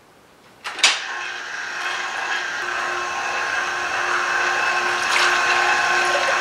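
Vertical slow juicer starting with a click about a second in, then its motor running with a steady hum of several fixed tones. The hum grows slightly louder as orange halves are pressed through it to make fresh-squeezed juice.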